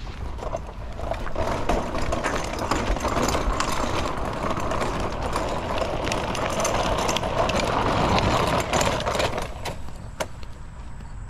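Dog-drawn folding wagon rolling over a gravel driveway, its wheels crunching and grinding on the stones. The noise eases near the end, with one sharp knock about ten seconds in.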